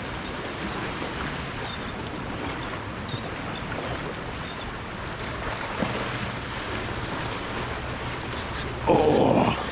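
Surf washing and wind buffeting the microphone, with a faint low steady hum underneath. Near the end, a sudden louder rush of noise lasts about a second.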